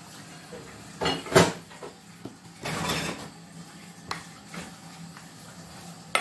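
Kitchen handling sounds: dishes and utensils clattering on a counter, loudest about a second and a half in, then a longer noisy stretch about three seconds in and a few light clicks.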